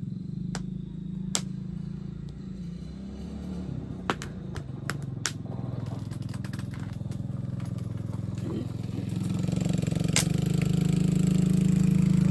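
Small four-stroke engine of a 110 cc kids' ATV running steadily with a low hum, growing louder about two-thirds of the way through as it comes closer or revs up. Scattered sharp clicks and snaps sound over it.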